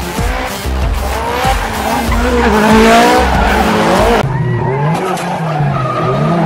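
Drift cars sliding in tandem, engines revving up and down with tyres squealing. About four seconds in the sound cuts to a single car's engine revving and easing off with less tyre noise.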